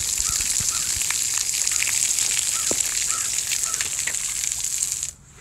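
Splash-pad fountain jets spraying water in a loud, steady hiss, with small splashes in it. The hiss drops away sharply near the end.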